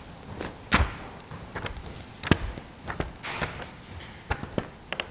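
Pages of a thick printed catalogue being leafed through: irregular papery flicks and short rustles as the pages fall over one after another.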